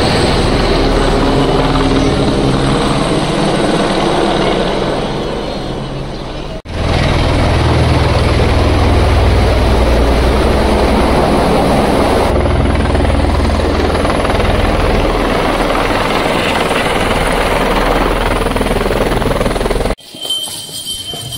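Helicopter rotor and engine noise, loud and steady with a fast beat from the rotor blades; it cuts off suddenly near the end.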